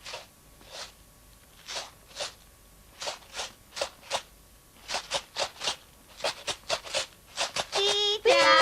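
Imitated steam-train chuffing for a train pulling away: short hissing 'chuff' strokes that start slowly and speed up. Near the end comes a sustained train-whistle 'whoo' of several tones at once.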